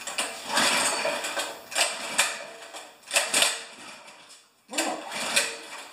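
Gasoline engine of a pressure washer being cranked with its recoil pull-starter, four short rasping pulls that end in clicks, without the engine catching. The engine is flooded, with the choke set at two-thirds.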